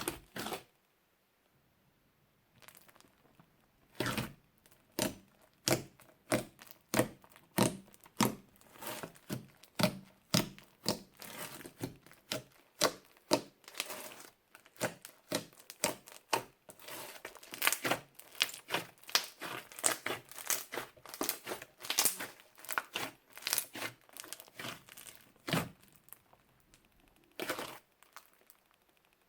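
Crunchy slime being squished and pressed by hand, giving a run of sharp crackling pops, about two to three a second. The pops start about four seconds in and stop a few seconds before the end.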